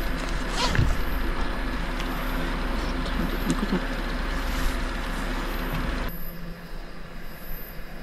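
Small electric fan running close by with a steady whir and a constant low hum, which cuts off abruptly about six seconds in.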